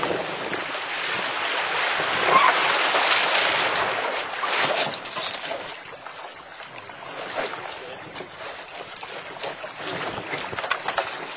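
Wind on the microphone and water rushing past the hull of a small sailboat under way as it tacks, louder in the first few seconds, then scattered knocks and rattles of the crew and rigging as they change sides.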